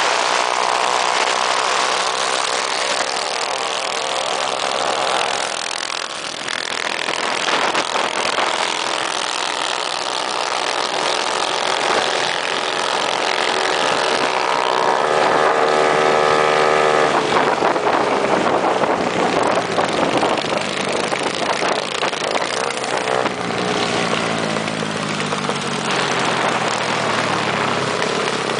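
Small minibike engines running hard at high revs, their pitch holding and shifting as the bikes race, then slowly falling in the last few seconds.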